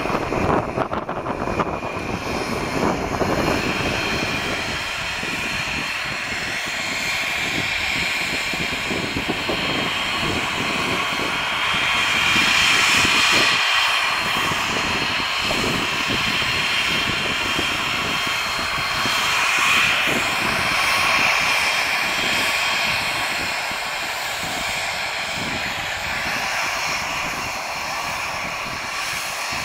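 Jet engine noise from an Embraer Legacy 600 climbing away after takeoff, fading within the first few seconds. It is followed by the steady high whine of a Cessna Citation XLS Plus's twin turbofans as the jet taxis at low power, swelling slightly twice.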